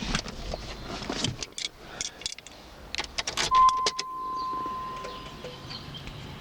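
Car keys jangling and clicking in a Mazda 626 ignition, with one steady high beep lasting about two seconds midway.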